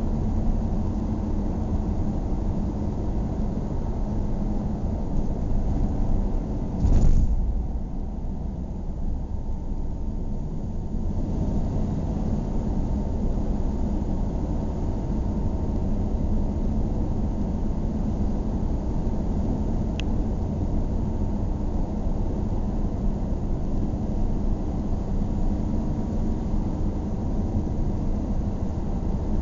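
Car driving at a steady speed, heard from inside the cabin: a continuous low engine and tyre rumble, with one short loud thump about seven seconds in.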